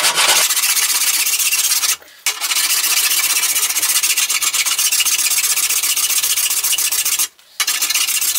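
A hand file rasping across metal as the peened-over end of a bolt on a drill's metal cowling is filed flush. The strokes run on steadily, broken by two short pauses.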